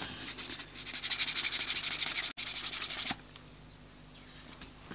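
Canvas cloth rubbed quickly back and forth along the dampened edge of a strip of vegetable-tanned leather, burnishing it: the heat and friction smooth and close up the edge fibres. The quick, even strokes stop about three seconds in.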